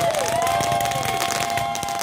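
Consumer fireworks going off: several whistles held at steady pitches overlap, a few falling away in pitch in the first second, over dense crackling and popping from the bursting shells.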